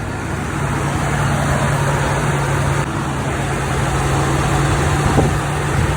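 Car engine running steadily, a low even hum.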